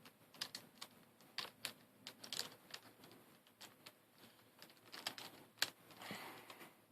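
Faint, irregular small clicks of plastic V-Cube 7 pieces being handled and fitted into the partly rebuilt cube by hand, with a short rustle just after the loudest click near the end.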